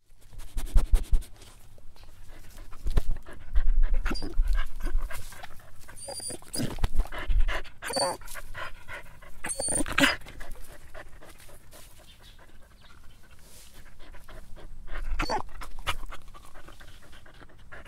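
A dog panting and snuffling in irregular breaths, with a few brief, faint high-pitched squeaks of whining and several dull low thumps.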